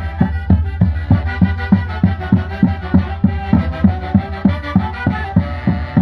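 Andean Santiago folk music played by a band: a steady drum beat about three times a second under a sustained melody line.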